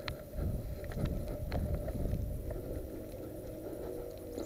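Low, uneven rumble of wind and handling noise on a body-worn camera's microphone as the wearer moves, with a few faint clicks.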